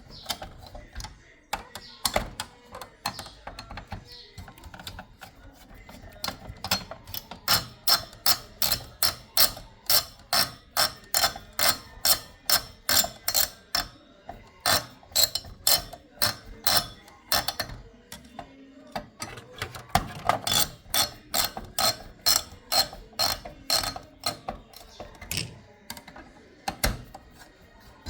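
A ratcheting screwdriver clicking as the CPU cooler's mounting screws are backed out. The clicks come in quick, even runs of about two to three a second, with short pauses between runs.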